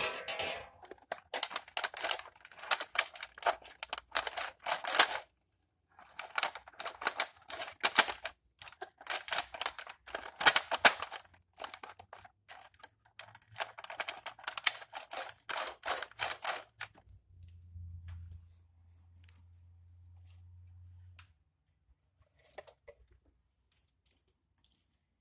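Lionel O gauge model train rolling on its track: rapid clattering of the wheels over the rails, in three runs of several seconds each, followed by a faint low hum.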